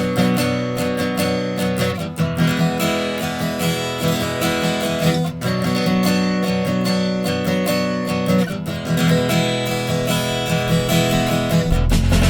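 Background music led by strummed acoustic guitar, the chords changing every couple of seconds; a heavier bass comes in near the end.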